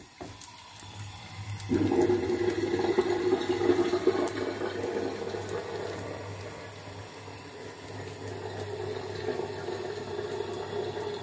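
Garlic and a chili pepper frying in olive oil in a frying pan: a steady sizzle that starts suddenly about two seconds in, over a low steady hum.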